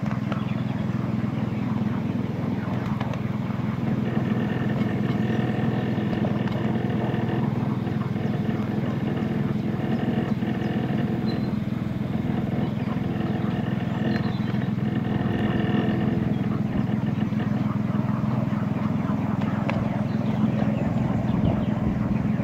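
Petrol-hydraulic 7¼-inch gauge miniature locomotive running steadily under way, its engine a constant low hum. A higher whining tone joins about four seconds in and fades out a few seconds past the middle.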